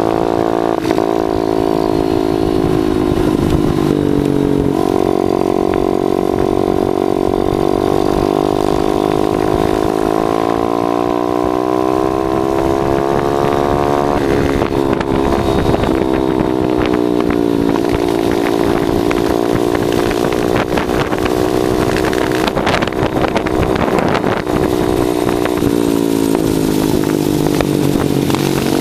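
Small 50cc single-cylinder minibike engine running under way, heard from the bike being ridden, its pitch rising and falling several times as it speeds up and eases off. Wind noise runs underneath, with scattered knocks in the second half.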